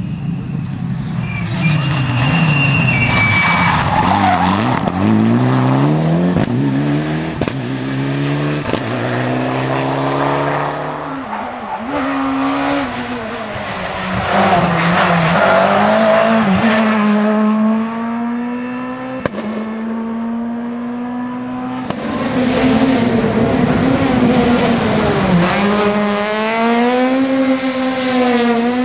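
Rally cars' two-litre four-cylinder S2000 engines revving hard as the cars pass at speed one after another, the engine note climbing and dropping again and again through gear changes and lifts.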